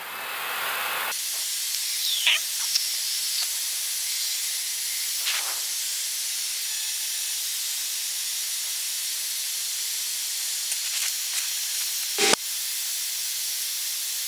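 Steady hiss of airflow and air-conditioning noise in the cockpit of an Airbus A320 in the climb, with a single short knock about twelve seconds in.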